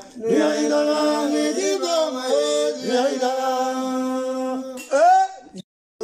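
A voice singing long, held notes that bend and slide between pitches, ending in a rising slide just before five seconds. The sound then cuts off abruptly to silence.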